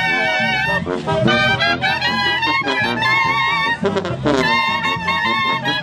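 Live Mexican banda (brass band) playing: clarinets and trumpets over a sousaphone bass, the held notes wavering with vibrato.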